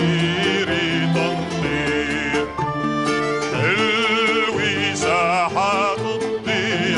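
A man's solo singing voice with a wide vibrato over instrumental accompaniment, the voice most prominent from about halfway through.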